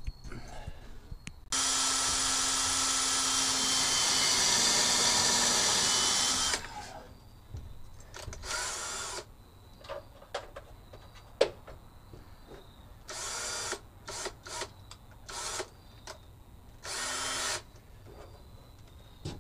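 Cordless drill driving screws up into a wooden perch. First comes one long run of about five seconds that drops slightly in pitch as it slows under load, then a string of short bursts, with a single sharp knock partway through.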